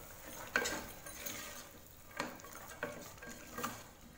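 A flat spatula stirring thick masala and green peas in an aluminium pressure cooker, scraping through the mix with about five sharp knocks against the pot.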